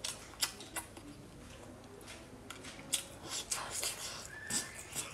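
Irregular crisp clicks and crackles of cooked shellfish shell being pulled apart by gloved hands and chewed, with wet mouth sounds between them.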